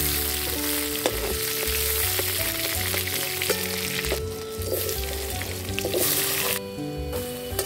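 Potato pieces frying in hot oil in a pan: a steady sizzle with a few light clicks. The sizzle thins briefly about four seconds in, and again near the end.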